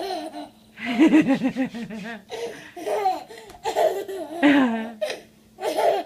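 Little boy laughing in a series of belly-laugh bursts with short pauses between them.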